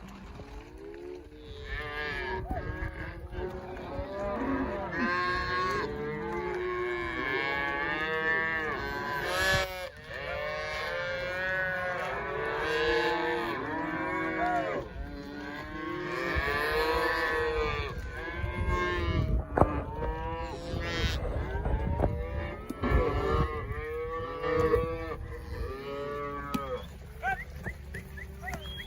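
A herd of cattle bawling, many cows mooing over one another without a break, over a low rumble.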